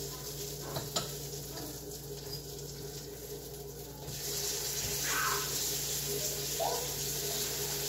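Hamburger patties sizzling in a frying pan, a steady hiss that grows louder about four seconds in, with a light click about a second in.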